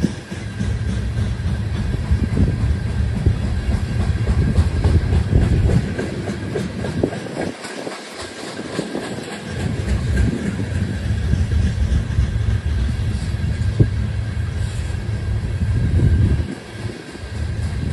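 Loaded freight train of covered hopper cars rolling past close by: a continuous rumble of steel wheels on rail with the clickety-clack of wheels crossing rail joints. The rumble eases briefly about eight seconds in and again near the end.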